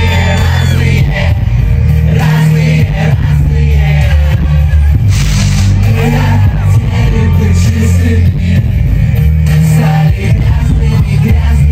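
Live pop music played loud through a concert PA system, with a heavy bass line and vocals.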